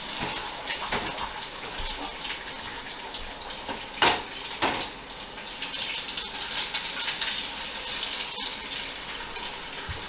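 An egg frying in a pan on the hob, a steady hiss of sizzling, with two sharp clatters of pan and utensils about four seconds in and a few lighter knocks.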